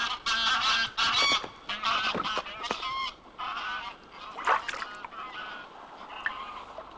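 A flock of geese honking, with many overlapping calls for the first three seconds, then fewer and fainter ones, and one louder call about four and a half seconds in.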